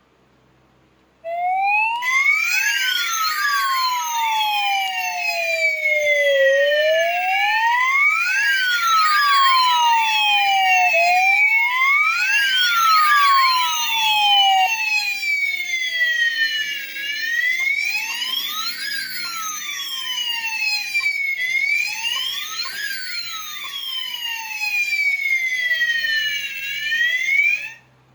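Electronic fire alarm sounder wailing, its pitch rising quickly and then falling more slowly over and over, about once every four seconds, with overlapping sweeps. It starts abruptly about a second in and cuts off suddenly near the end.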